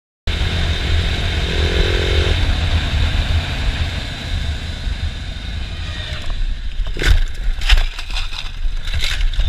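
Wind buffeting a helmet-mounted camera while a motorcycle rides at speed, its engine running underneath. In the last few seconds, a series of sharp knocks and scraping, typical of a motorcycle crash, with the loudest hit about three-quarters of the way through.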